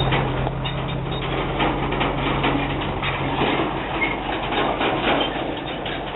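Pickup truck engine idling with a steady low hum, overlaid with many small clicks and crunches close to the microphone.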